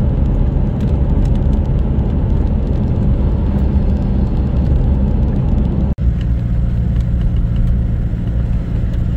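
Car engine and road noise droning steadily inside the cabin while driving. It cuts out for an instant about six seconds in and carries on.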